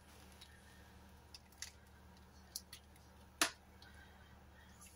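Grated gruyère sprinkled by hand onto a tart on parchment paper: very quiet, with a faint low hum, a few soft ticks and one sharper click about three and a half seconds in.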